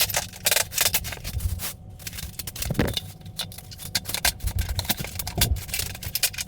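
Hammer tapping on a tapping block to knock a vinyl plank's joint together: a rapid, uneven series of sharp taps.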